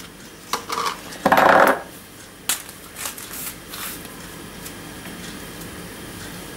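Clinks and knocks of dishes and utensils being handled and set down on a kitchen counter: a few sharp clicks, with the loudest, a short clatter, about a second and a half in. After about four seconds only faint room noise remains.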